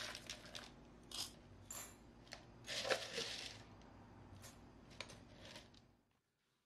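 Dry cat kibble poured from a plastic container into ceramic bowls, rattling and clattering in a series of short pours.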